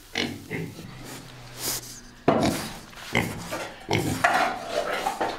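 Farm animal sounds: several short, irregular calls and breaths, one after another.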